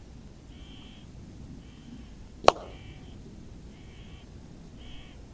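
Crows calling, short harsh calls at about one a second. A single sharp crack of an air-rifle shot comes about two and a half seconds in.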